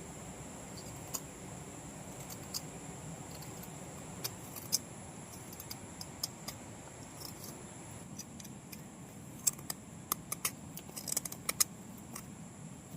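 Steady high-pitched chirring of crickets or other insects, with scattered sharp clicks and taps that come thicker in the second half.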